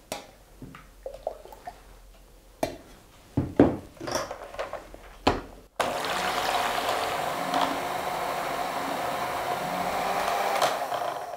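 A few knocks and clatters of a steel measuring jug and mixer beaters against a plastic mixing bowl as cream is poured in. A little before halfway an electric hand mixer starts abruptly and runs steadily, whipping the cream.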